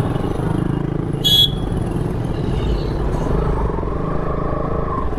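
Motorcycle engine running at low speed as the bike creeps along, with a brief loud burst about a second in.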